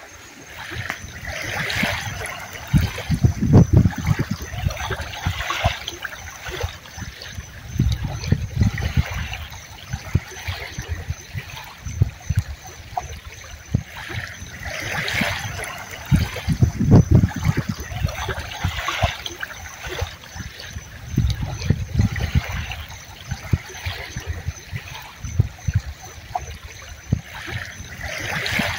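Small waves lapping and splashing in irregular surges every couple of seconds, with low thumps among them.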